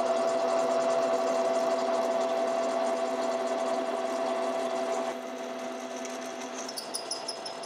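Radial drill press running at about 350 RPM while a 37/64-inch twist drill cuts down through a metal bar, giving a steady machine hum. The sound drops quieter about five seconds in, and a rapid high-pitched ticking comes in near the end.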